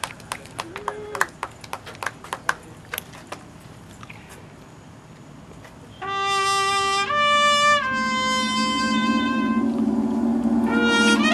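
Scattered sharp clicks for the first few seconds, then about six seconds in a drum corps brass horn line comes in with a loud held chord. The chord shifts to new notes twice, and low contra brass joins in under it.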